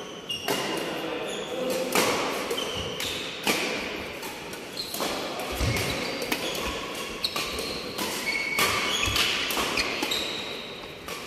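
Badminton rally in a large echoing hall: racquets hitting a shuttlecock back and forth, a sharp crack about every second, with short shoe squeaks on the court mat between shots.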